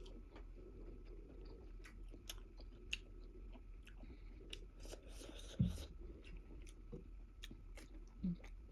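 Close-up mouth sounds of someone eating spicy ramen: wet chewing with many small clicks and lip smacks. A brief rushing noise comes about five seconds in, followed by a soft thump.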